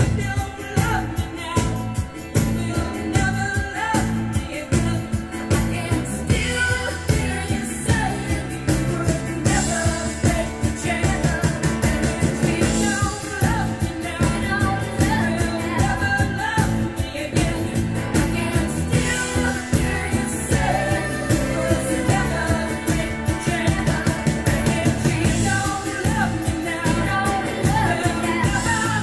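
A song with a singing voice over a band and a steady beat, played back through Marten Duke stand-mounted loudspeakers in a room.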